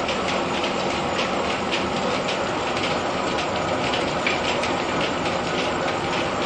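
Threshing machine at a mill running steadily: a continuous mechanical rumble and hiss with quick, irregular ticking and rattling on top.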